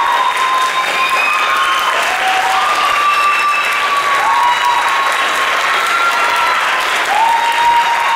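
Audience applauding steadily in a concert hall, with several long, held high calls of cheering over the clapping.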